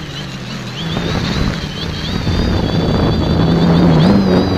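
X550 quadcopter's electric motors and propellers whining, the pitch wavering with the throttle, with wind rushing over the camera's microphone on board the quad. It grows louder from about a second in, and the whine rises in pitch near the end.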